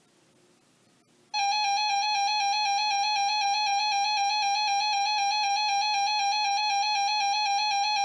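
Weather alert radio sounding its warning alarm: a loud, steady electronic tone that switches on suddenly about a second in, with a slight fast wobble. It signals that a severe thunderstorm warning has been received.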